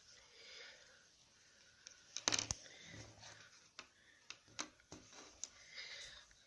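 Faint handling noise of a plastic ballpoint pen and its refill: a quick cluster of clicks and rustle a little over two seconds in, then scattered light clicks.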